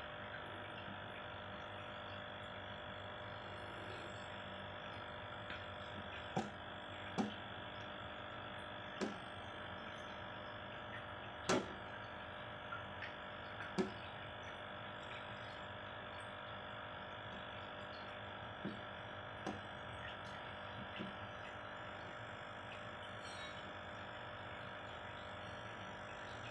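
Steady electrical hum from the aquarium setup, with about a dozen short, sharp taps scattered irregularly through it: fingers touching and tapping the aquarium glass. The loudest tap comes a little before the middle.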